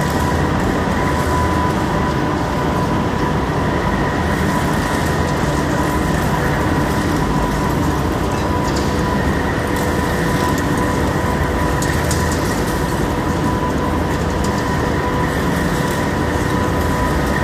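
Machine tool cutting cast steel: a loud, steady machining noise with a constant whine through it.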